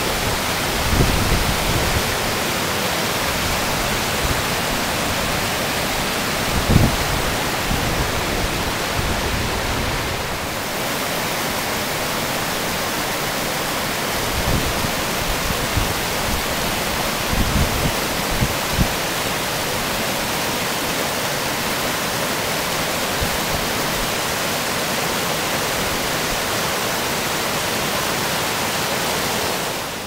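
River in full flood pouring over small waterfalls: a steady, loud rush of water, with a few brief low thumps, the loudest about a quarter of the way in.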